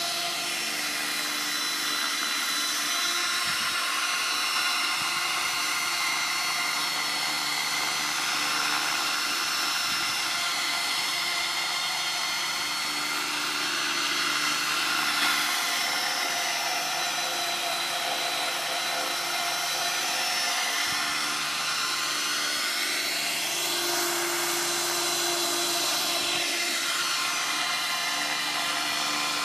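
Radio-controlled model helicopter running: a steady high whine from its motor and rotors, rising and falling in pitch a few times as it lifts off and hovers low.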